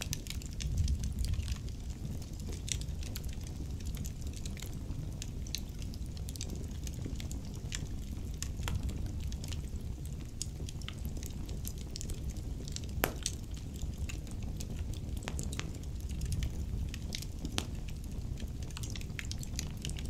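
Wood logs burning in a fireplace: a steady crackle of frequent small pops over a low rumble of the flames, with one louder crack about two-thirds of the way through.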